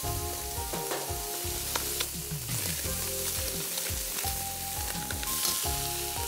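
Onion, garlic, hake and prawns sizzling in hot oil in a stainless steel pot as paprika is stirred in, with a few clicks of the spoon against the pot.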